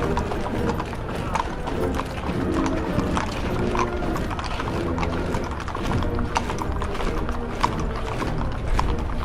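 Military parade: troops marching, a stream of sharp footfalls on hard ground, with a band playing.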